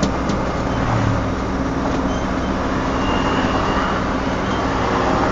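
Hino Dutro light truck's diesel engine and road noise, a steady drone heard from inside the cab while driving. The truck's torn exhaust has just been welded.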